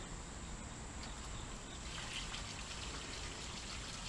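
Water poured from a bucket into the inlet of a newly laid solid PVC downspout drain, a faint steady pour and trickle, testing that the pipe carries the water away.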